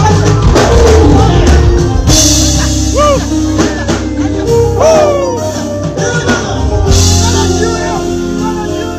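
Loud music over a stage sound system: a heavy bass beat with a voice singing, sliding up and down in a couple of phrases about three and five seconds in.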